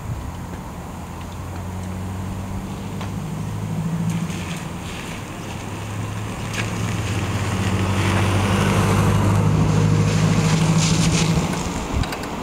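An engine running with a low, steady hum that gets louder in the second half and drops away shortly before the end, with a few light clicks and knocks over it.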